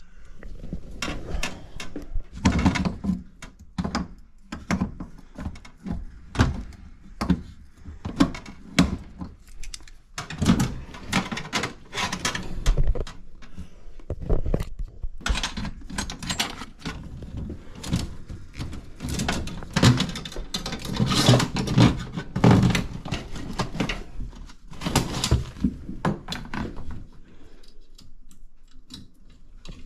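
Irregular knocks, clunks and rattles of hands-on work on an air handler, with parts and tools being handled; the clatter is busiest in the middle and thins out near the end.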